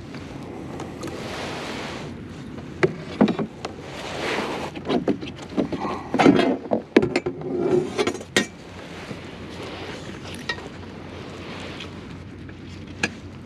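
Handling noise aboard a plastic fishing kayak as a caught sheepshead and gear are handled over the deck hatch: scattered knocks, clicks and rustling. There is a cluster of knocks about halfway through and one sharp click near the end.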